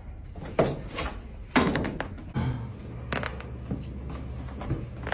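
Back cracking during a chiropractic adjustment: several sharp cracks and thumps, the two loudest about half a second and a second and a half in, with background music.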